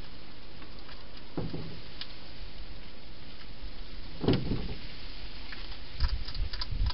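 A wild hedgehog moving and eating inside a clear plastic feeding box: a dull bump about four seconds in, then a run of small sharp clicks near the end, all over a steady hiss.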